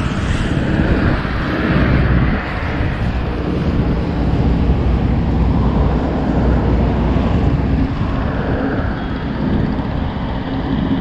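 Steady roadside traffic noise, with vehicles swelling past a couple of times and wind rumbling on the microphone.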